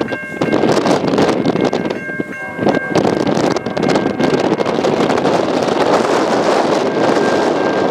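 Wind buffeting the microphone over an approaching freight train led by GE ES44AC locomotives, with the lead locomotive's horn chord sounding about two seconds in and again near the end.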